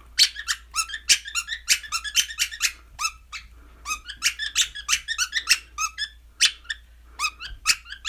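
Budgerigar giving a fast run of short, high squeaks, about four a second with a couple of brief pauses, that sound like a squeeze toy.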